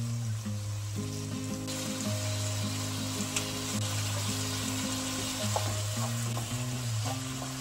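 Food sizzling in a hot frying pan while it is stirred, the sizzle growing louder a little under two seconds in, with a few light clicks of the utensil against the pan.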